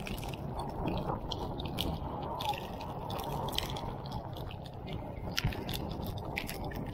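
Raindrops ticking irregularly on the action camera, heard through its internal mic over a steady low rumble of wind and road noise from a motorcycle riding on a wet road in heavy rain.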